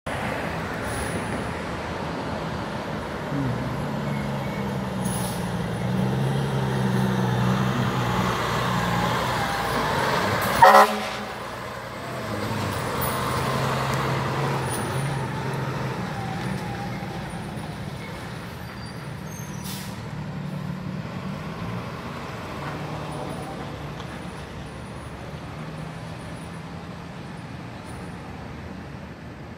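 Fire trucks' engines running as they drive past, the drone building and then fading away as they move off. There is one brief, loud horn toot about eleven seconds in.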